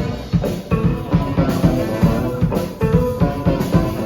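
Band playing an instrumental passage: a drum kit keeps a steady beat under guitar and other pitched instrument lines.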